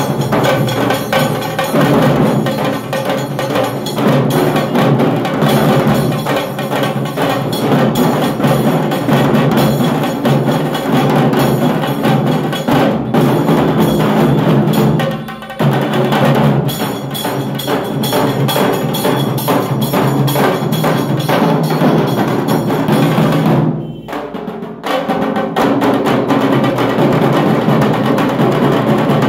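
A group of dhak drums, large barrel drums beaten with thin sticks, played together in a loud, fast, continuous rhythm. The drumming briefly drops off about fifteen seconds in and again for about a second near twenty-four seconds.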